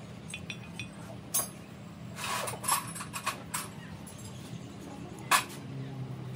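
Paintbrush working paint onto a metal pipe fitting: scrubbing strokes with a few light metallic clinks and taps, the sharpest near the end, over a steady low hum.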